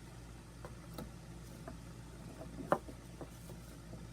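Faint, scattered light clicks and taps of small hard parts being handled, with one sharper click a little past halfway, over a steady low hum.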